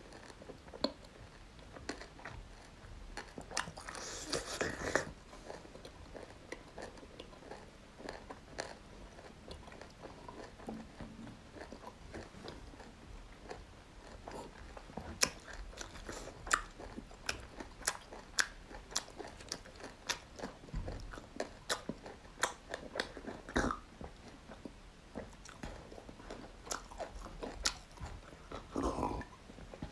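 A person chewing a mouthful of peeled lemon close to the microphone, with irregular wet mouth clicks and smacks. A louder noisy stretch comes about four seconds in. Near the end he takes a drink of water from a glass.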